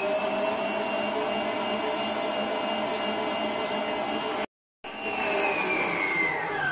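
Electric stand mixer running steadily with a wire whisk beating mantecada batter, its motor giving a steady whine. The sound breaks off briefly about two-thirds of the way through, and near the end the whine falls in pitch as the motor slows down.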